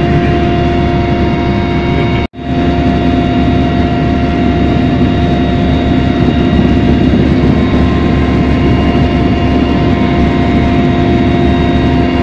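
Helicopter cabin noise in flight: the engine and rotor running steadily, several even tones over a dense rumble. The sound cuts out for an instant about two seconds in.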